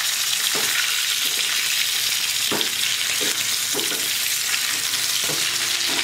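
Boiled potatoes frying in hot oil in a kadhai, a steady high sizzle, with a metal slotted spatula scraping and knocking against the pan several times as the potatoes are turned and mixed.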